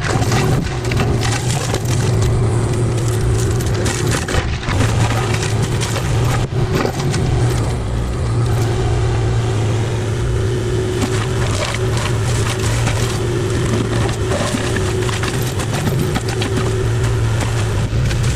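Forestry mulcher running and shredding wood: a steady engine drone under dense, continuous crackling and splintering.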